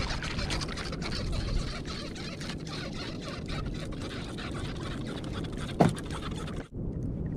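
Sea water lapping and splashing against the hull of a small wooden outrigger boat, with scattered small knocks. About six seconds in, one short, loud sound falls in pitch, and the sound cuts out briefly just after it.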